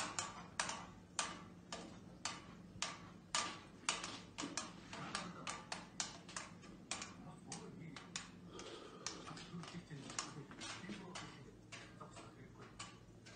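Household furnishings rattling and clinking as a room shakes in an earthquake: a run of sharp, uneven clicks, about two to three a second, that keeps on without a break.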